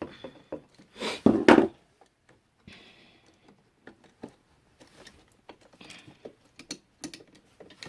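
Handling noise as an electrical receptacle and its folded wires are pushed into the wall box: a loud scrape about a second in, then scattered light clicks and taps.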